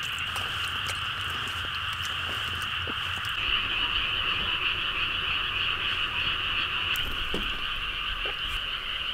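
A dense chorus of many frogs calling together at night, a steady, unbroken wash of calls with no pauses.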